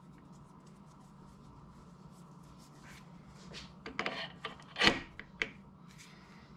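Live center being fitted into a mini lathe's tailstock quill: metal scraping and rubbing, with one sharp metallic knock about five seconds in as it seats in the taper, then a couple of lighter clicks.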